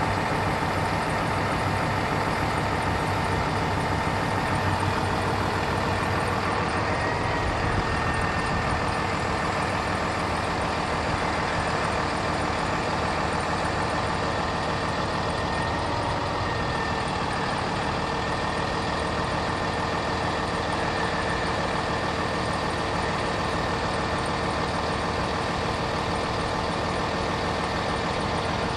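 Bucket truck's diesel engine running steadily at idle, powering the Altec AT37G aerial boom's hydraulics as the boom raises and swings, with a steady high whine over it.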